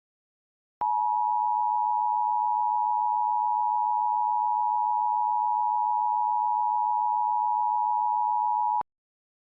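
Emergency Alert System attention signal: the steady two-tone 853 and 960 Hz alert tone, starting about a second in, holding for about eight seconds and cutting off suddenly. It announces an emergency message, here a tornado warning.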